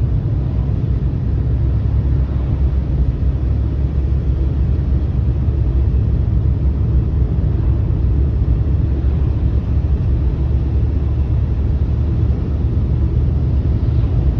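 Steady low rumble of a car driving along at speed, heard from inside the cabin: tyre and engine noise.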